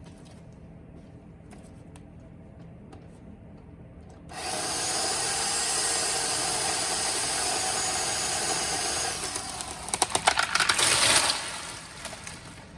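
Remington Ranger II electric pole chainsaw cutting into a thick dead ash limb, starting about four seconds in and running steadily for about five seconds. It is followed by a quick run of loud cracks and snaps as the limb breaks away and falls.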